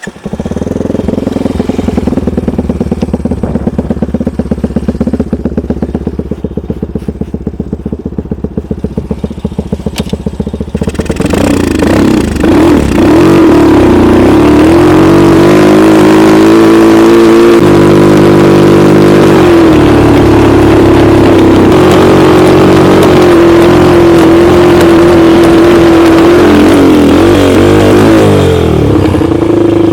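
The homemade snowmobile's engine starts up suddenly and runs at low revs for about ten seconds. About eleven seconds in it is revved up and runs loud under load, its pitch rising and falling as the machine drives through wet snow.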